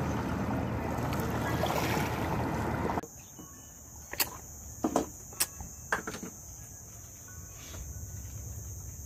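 Wind buffeting the microphone over small waves lapping at a lake shore. This cuts off abruptly about three seconds in to a quieter kitchen, where a spoon clinks sharply against a frying pan a handful of times while a pancake cooks.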